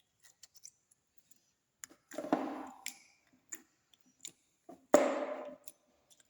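Slime being squished and pressed by hand: small sticky clicks and pops throughout, with two louder squelches about two and five seconds in, the second the loudest.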